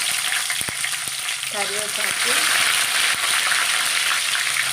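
Tempering spices (urad dal, cumin, mustard seeds, dried red chillies) frying in hot oil in a pan: a steady sizzle with scattered sharp crackles. It grows louder a little after two seconds in, as curry leaves go into the oil.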